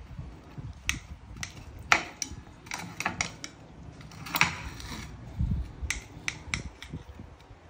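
Knife dicing cheese into small cubes, the blade knocking on the cutting board in irregular sharp taps, one or two a second.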